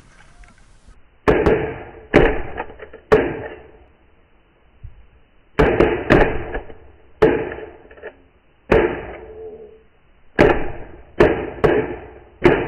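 Shotgun volley at snow geese: about a dozen loud, sharp shots from several waterfowl shotguns, three spaced about a second apart, then a quick cluster, two single shots, and four more near the end, each with a short echo tail.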